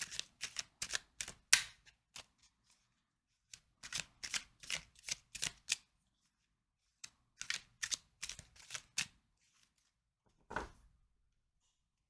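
Tarot deck being shuffled by hand: three bouts of quick card clicks and slaps, followed by a single soft thump about ten and a half seconds in.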